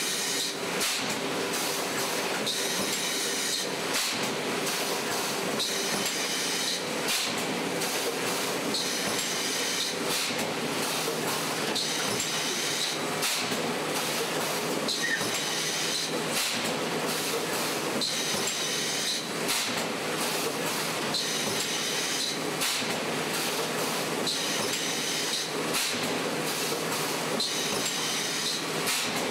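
Industrial machine running in a repeating cycle, with a hiss about every three seconds over a steady mechanical run and sharp knocks between.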